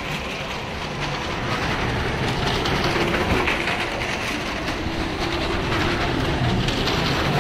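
Maruti cars' engines running hard as they circle the wooden wall of a well-of-death pit, with a steady rumble and fine rattling from the tyres on the wooden planks.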